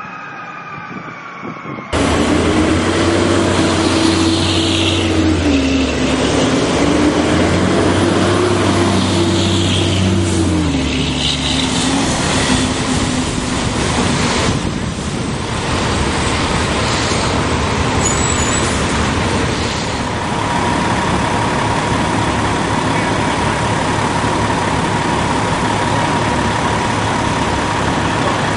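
Fire engines and other fire apparatus moving along a wet city street: heavy engine noise and the hiss of traffic on wet pavement. A loud steady pitched tone holds and steps down in pitch over the first ten seconds or so. The sound is quieter at first and jumps to much louder about two seconds in.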